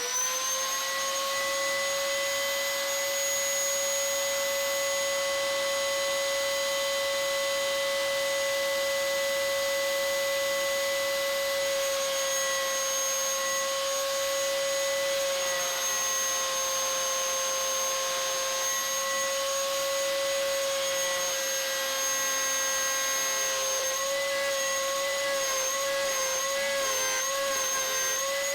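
Electric router on a router table running at full speed with a straight bearing-guided flush-trim bit, a steady high whine, while trimming plywood flush to an MDF template. The pitch wavers in the last few seconds.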